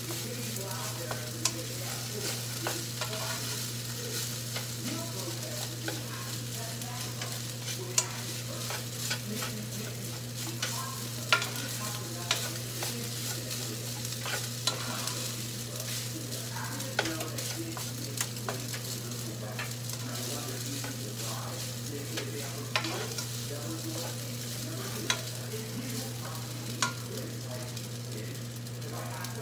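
Garlic fried rice sizzling in a frying pan as it is stirred and turned with a spatula, with scattered sharp clicks of the spatula against the pan. A steady low hum runs underneath.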